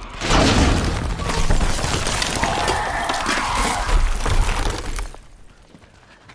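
Frozen lake ice cracking and breaking up under a large winged dinosaur's weight: a loud, dense run of cracks and crunches that drops away to a quieter stretch about five seconds in.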